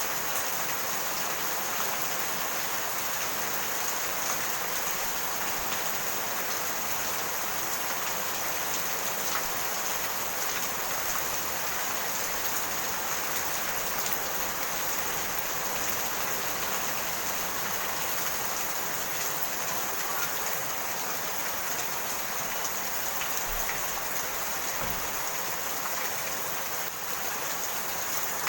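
Steady rain falling: an even hiss with fine ticks of individual drops, unchanging throughout.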